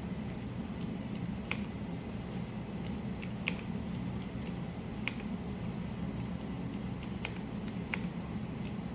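Sparse, irregular sharp clicks of plastic keyboard parts being handled on a mechanical keyboard, about six in all, over a steady low hum.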